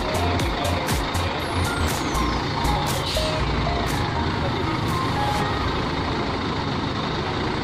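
Coach bus engine running at low speed as the bus backs up slowly, its reversing alarm sounding a repeated series of short tones.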